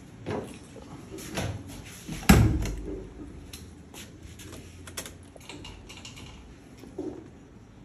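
The steel bonnet of an old-model Mahindra Thar is shut with one heavy thump about two seconds in. Lighter clicks and knocks of handling come before it, and a few more follow as the driver reaches for the ignition.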